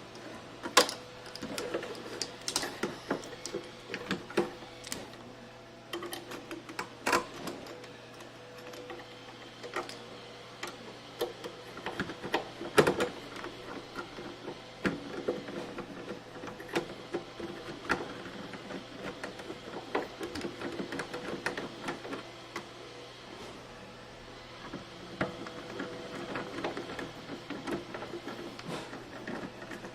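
Irregular clicks, taps and knocks of freezer parts being handled and fitted, over a steady low hum.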